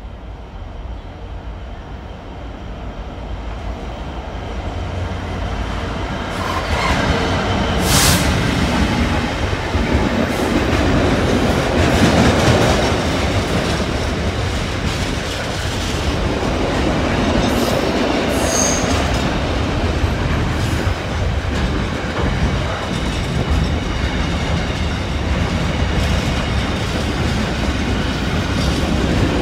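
Diesel-hauled container freight train approaching and running through the station, growing louder for the first several seconds, then a steady rumble and clatter of loaded container wagons rolling past on the rails. There is a sharp bang about eight seconds in and a short high squeal about two-thirds of the way through.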